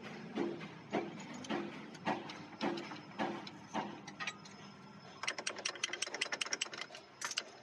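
Metal tool work on a diesel truck engine: a steady series of ringing metal knocks about twice a second, then from about five seconds in a fast run of clicks.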